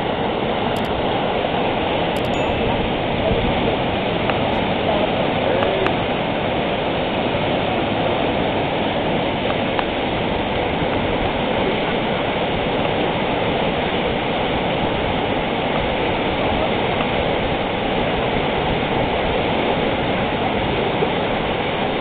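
Steady rushing of a fast whitewater mountain river over rapids and rocks.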